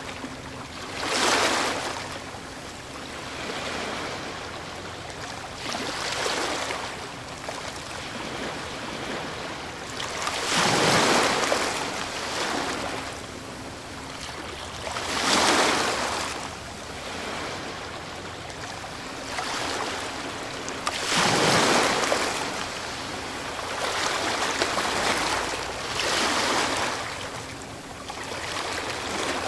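Ocean waves breaking on the shore, each wave a rushing surge that swells and fades, coming about every five seconds.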